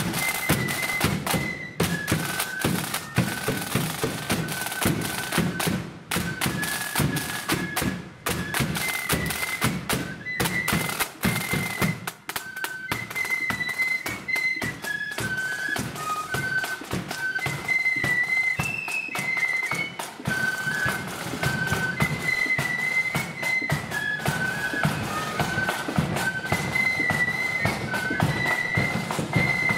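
Marching flute band playing a tune: massed flutes carry a high melody over quick snare drum strokes and a booming bass drum.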